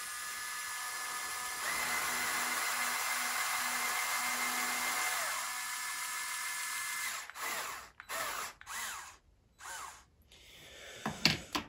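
Small electric motors and gearing of a Lego Technic RC excavator model whining steadily as the arm and bucket dig under load. The whine gets louder about two seconds in and stops about seven seconds in, followed by a few short bursts of motor movement.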